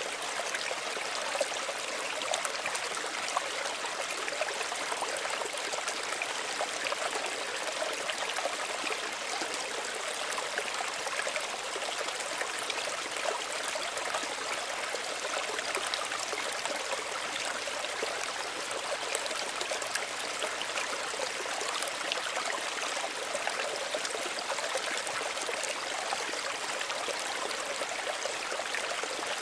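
Small stream running steadily, a gentle, even trickle and babble of water over stones.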